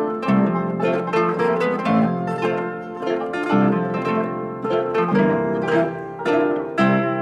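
Background music: quick plucked notes ringing over chords that change every second or so.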